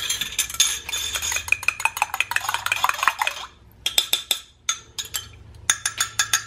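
Metal spoons clinking and scraping against the inside of a glass measuring cup as its liquid is stirred and poured: a quick, busy run of clinks, a quieter spell about halfway, then more clinks near the end.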